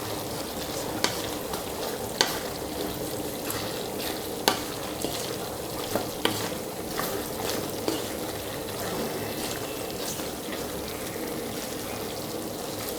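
Chicken and ground Chettinad masala paste sizzling in a hot pan while being stirred, the stirring utensil knocking against the pan about once a second.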